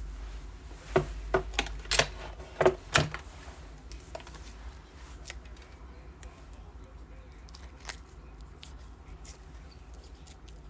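Trading cards and their plastic holders being handled on a table: a quick run of about six sharp clicks and taps in the first three seconds, then only faint scattered ticks.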